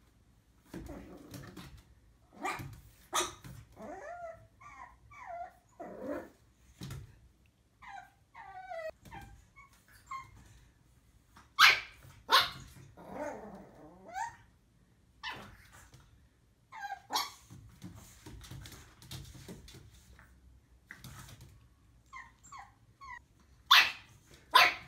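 Black pug puppy barking in short pairs of sharp barks, with softer wavering growls and whines between them. The loudest pair of barks comes near the end.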